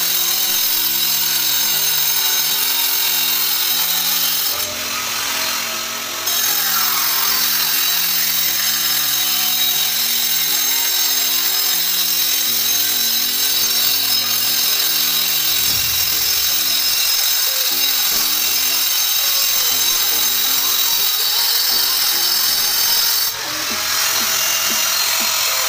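Angle grinder cutting continuously into a concrete floor, a steady high grinding whine that shifts briefly about five seconds in and again near the end, over background music with a simple melody.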